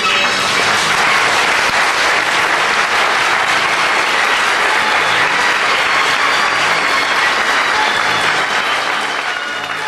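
Audience applauding steadily after the music stops, the applause thinning out near the end.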